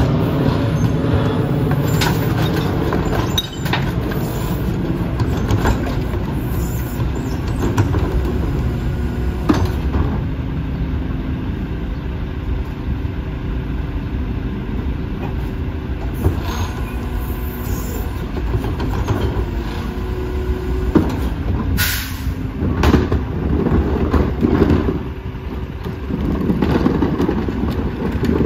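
Rear-loading garbage truck's diesel engine running steadily, with knocks and clatter as recyclables are tipped from carts into the hopper. A short, sharp hiss of air about three-quarters of the way through.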